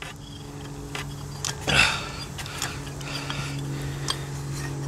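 Scattered light metallic clinks and clicks of a socket wrench and extension being worked against a stubborn spark plug that will not come out, over a steady low hum.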